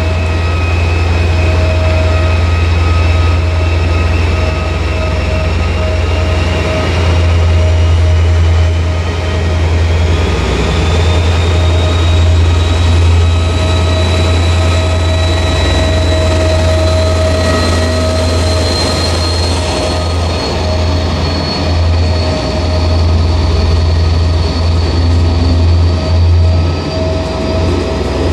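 SNCF CC 72100 diesel locomotive hauling passenger coaches past at close range, its engine running loud and steady with a deep drone and a high whine that slowly rises in pitch.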